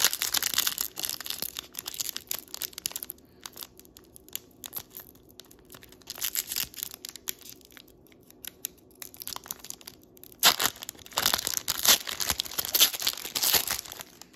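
Foil wrapper of a Star Wars Boba Fett trading-card pack crinkling and tearing as it is ripped open and handled. The crackling comes in two dense spells, at the start and again for the last few seconds, with sparser rustling between.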